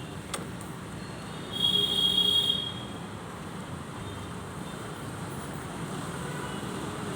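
Steady street traffic noise. About a second and a half in, a high-pitched tone sounds for about a second, the loudest thing heard.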